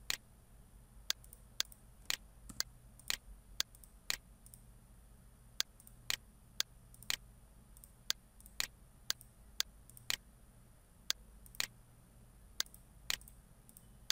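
Computer mouse button clicking: about twenty sharp single clicks, many half a second apart, over a low steady hum.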